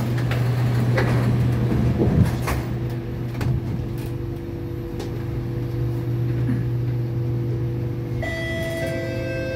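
SMRT C751B train's doors sliding shut with a knock about two seconds in, over the carriage's steady low hum. Near the end, steady electric tones from the train's traction equipment start up as it pulls away.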